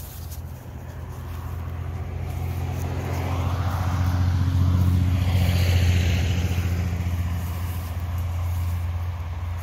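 A motor vehicle's engine hums as it passes: the sound builds to a peak about five to six seconds in, then fades as it moves away.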